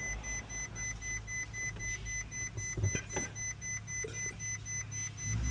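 A low, steady hum that pulses several times a second, with a faint, rapid high-pitched electronic beeping throughout and a couple of short clicks about three seconds in.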